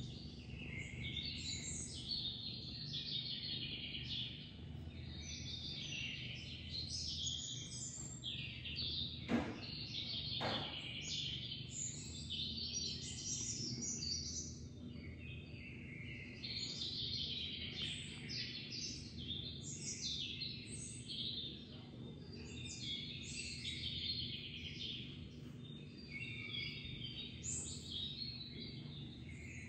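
Many small birds chirping, high-pitched calls overlapping continuously, over a steady low hum. Two short clicks come about nine and ten and a half seconds in.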